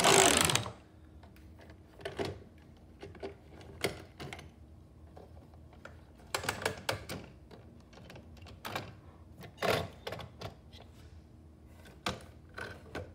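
Hard plastic toy engines and playset pieces being handled: scattered clicks, taps and knocks every second or two, with a brief rushing noise at the very start.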